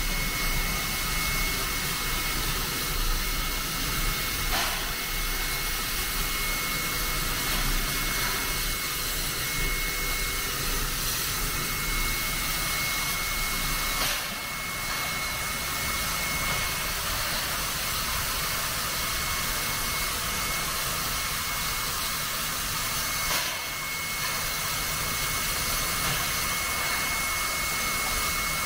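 Steady hiss of steam escaping around the cylinders and running gear of a standing steam locomotive, NSWGR D59-class 2-8-2 No. 5917.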